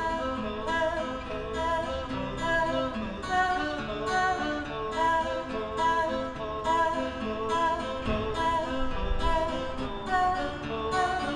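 Music: acoustic guitar with a singing voice.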